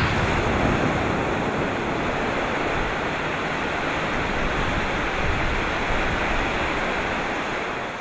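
Steady rushing noise, like surf or hiss, with no pitch or rhythm, easing off near the end.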